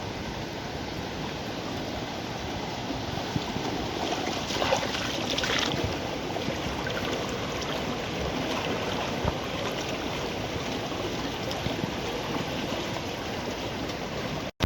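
A river in flood rushing steadily, its water high after heavy rains, with a louder surge of splashing about four to six seconds in. The sound cuts off sharply at the very end.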